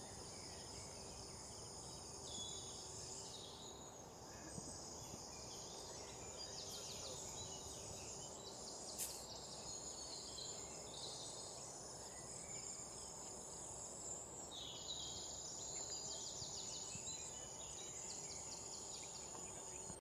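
Faint insect chorus in grassland: a steady high-pitched buzz with repeated short trills, over low outdoor background noise.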